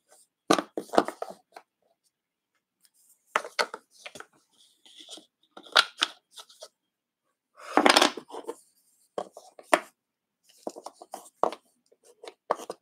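Chunky wooden puzzle pieces clacking and scraping against a wooden puzzle board and tabletop as they are handled and fitted into their cut-outs. Scattered short knocks and rubs with quiet gaps, the loudest about eight seconds in.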